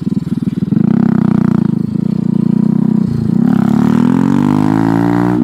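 Honda Grom 125cc single-cylinder four-stroke engine running under throttle. It breaks off briefly about three seconds in, then rises steadily in pitch as the bike accelerates.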